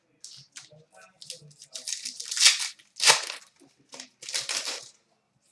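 Hockey trading cards being handled and flipped: a run of short rustles and crinkles as cards slide against each other and their packaging.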